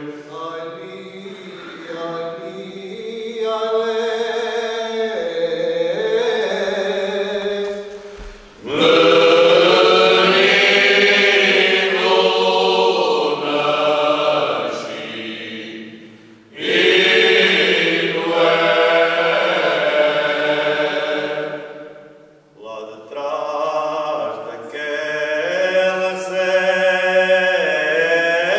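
All-male Cante Alentejano choir singing unaccompanied in slow, long-held phrases. The singing starts quieter, then the full choir comes in loudly about eight seconds in and again after a short break a little past halfway.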